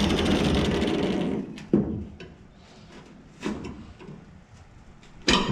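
Angle grinder with a flap disc coasting to a stop, its whir dying away about a second and a half in. A few light metal clicks and knocks follow as a cut piece of angle iron is handled in locking pliers, with a louder knock near the end.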